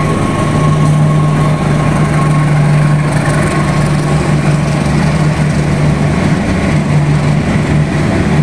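The V8 diesel engine of a CC201 (GE U18C) locomotive running steadily: a deep, even drone with a constant high whine above it.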